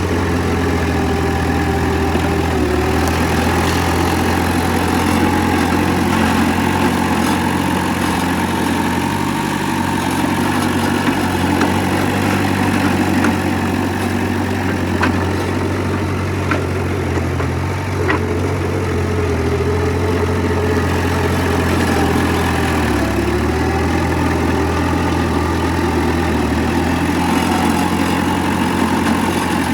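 Diesel engine of heavy earthmoving machinery running steadily, its pitch dipping and recovering a couple of times as the load changes, with a few faint knocks.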